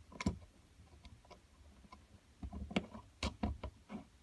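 Bolts, nuts and steel bars clicking and knocking as they are handled and fitted together: a string of irregular sharp taps, one loud near the start and a busier, louder cluster in the second half.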